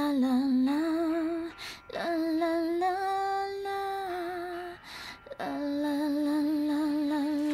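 A woman singing a slow, wordless melody alone, in three phrases with a short breath between each. The held notes carry vibrato, and the middle phrase rises to a long held note.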